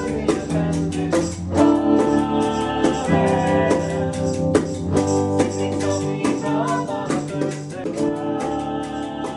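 Small indie rock band playing: electric guitar, bass guitar and keyboard over a steady beat of drum strikes, with some singing.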